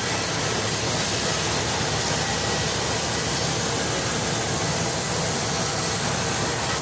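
Sawmill band saw running and cutting lengthwise through a teak log: a steady, noisy rush of sawing over the machine's even hum.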